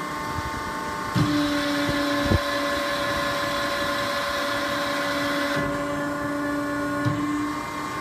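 A machine running with a steady hum and whine. A louder hissing rush joins about a second in and stops about five and a half seconds in, with a single knock in between.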